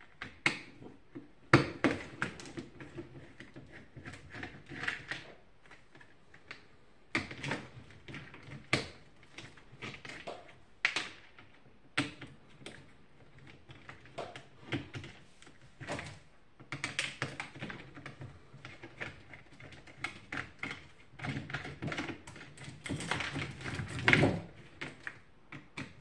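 Hands pulling wiring loose from a box fan's plastic housing: scattered clicks, knocks and rustling of plastic and wire, in irregular spells with short pauses. The sharpest knocks come about a second and a half in and again near the end.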